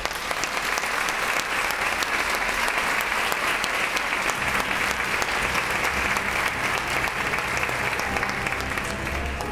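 Theatre audience applauding: dense, steady clapping that holds at one level throughout.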